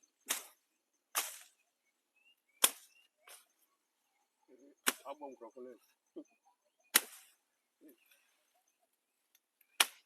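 Hand tools chopping into brush as overgrown growth is cleared: sharp, irregular strikes, about seven in ten seconds.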